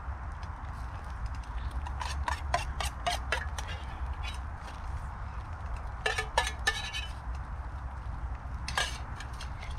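A spoon clinking and scraping against a metal camping pot or bowl while beans are eaten, in small clusters of sharp clinks a few seconds apart, over a steady low rumble.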